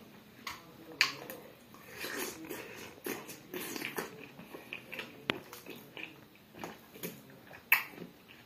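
Close-up mouth sounds of a person biting and chewing juicy watermelon, with irregular sharp clicks throughout, the loudest about a second in and near the end.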